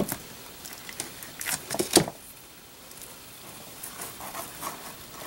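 Scissors tapping and pressing tulle netting into hot glue along a mirror frame: a few sharp light clicks, bunched about a second and a half to two seconds in, over soft rustling of the netting.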